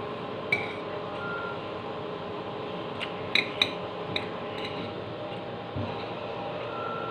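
A metal spoon clinking and scraping against a bowl while scooping rice: one sharp clink about half a second in, then a cluster of several clinks from about three to four and a half seconds. A steady hum runs underneath.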